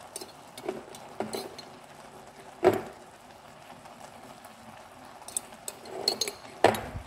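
Knocks and clinks of a glass sauce jar being shaken and tapped against a pot as spaghetti sauce is poured onto spaghetti. The sharpest knocks come a little under three seconds in and again near the end.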